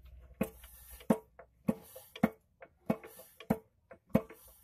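Yanmar TS190 single-cylinder diesel being turned over by hand with its gear cover off, giving eight sharp metallic clacks at an even pace, about one every 0.6 s. This shows the compression with the new piston and rings fitted.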